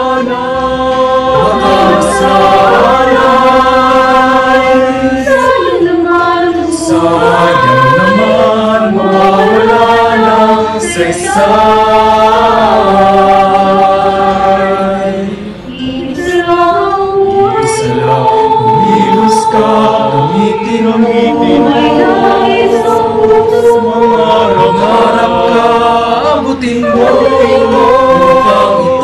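A mixed choir of male and female voices singing in harmony, recorded separately at home and mixed as a virtual choir. The held chords shift every second or two, with a short dip for breath about halfway through.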